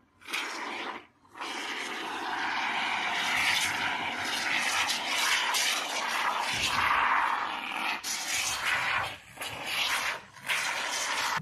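Aerosol can of expanding spray foam spraying with a loud hiss, stopping briefly about a second in and twice near the end.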